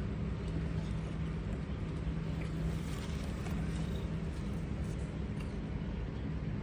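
Steady low machine hum, even in level throughout.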